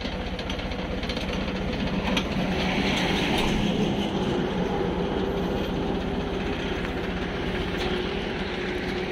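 Engine of a crash barrier installation machine running steadily, with a low pulsing drone and no blows of the post driver.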